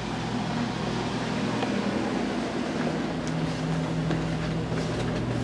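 Steady mechanical hum of the railroad passenger car's onboard equipment, with a low drone under a noisy whir. The drone's pitch shifts upward about halfway through and back near the end, and a few faint footfalls sound on a spiral metal-edged staircase.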